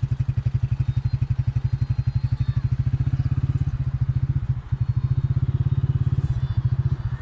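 Engine of the vehicle carrying the camera running steadily under way on a dirt track, a low rapid throb that dips briefly a little past halfway.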